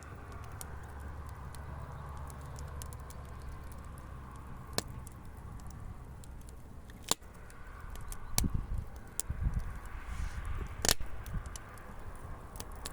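Outdoor fire crackling, with scattered sharp pops over a steady low rumble. The rumble surges unevenly in the second half.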